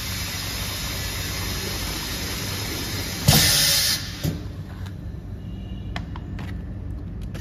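Pneumatic piston filling machine dispensing liquid through its nozzle into a plastic spout pouch, a steady rushing hiss. About three seconds in, a sudden loud burst of air hiss lasting under a second, then a click; after that it is quieter, with a few light clicks.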